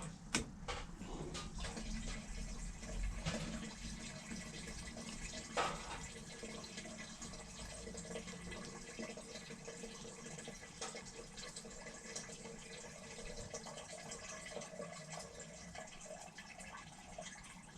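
Solder melting under a soldering iron on an RC motor's wire tab: a faint, steady crackling sizzle of burning flux, with a few sharp clicks at the start and about six seconds in.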